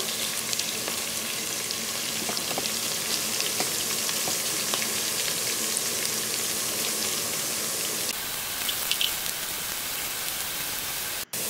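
Sliced onions and cumin seeds sizzling in hot oil in a pot: a steady hiss with small crackles and pops, the onions still pale at the early, light-frying stage. The sound drops out for an instant near the end.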